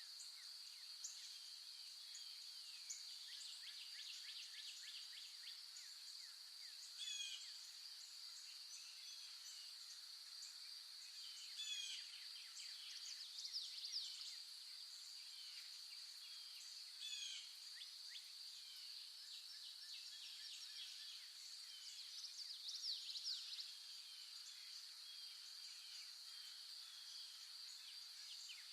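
Faint outdoor nature ambience: a steady high-pitched insect drone, with short chirping bird calls every few seconds.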